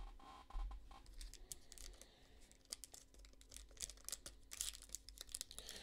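Foil trading-card pack wrapper crinkling faintly in the hands and being torn open, with scattered small crackles that grow denser near the end.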